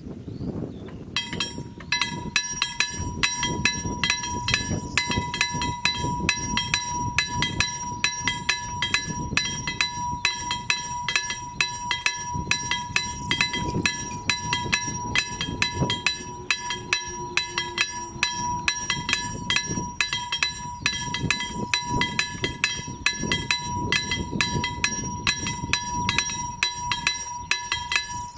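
Level crossing warning bell starting about a second in and ringing in a fast, even rhythm over a steady high tone. It warns that a train is approaching while the red lights flash and the barriers come down.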